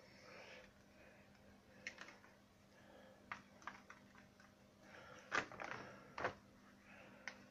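Hands peeling a Play-Doh mould off a plaster (gypsum) Buddha casting: scattered light clicks and taps with soft rustling, the two loudest clicks about five and a half and six seconds in. A faint low hum runs underneath.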